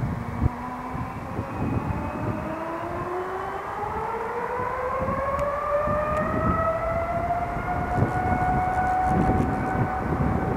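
Boeing 787 Dreamliner turbofan engine spooling up: a whine with several overtones rises steadily in pitch, then levels off near the end as the engine settles at its running speed. Gusty wind rumble on the microphone lies underneath.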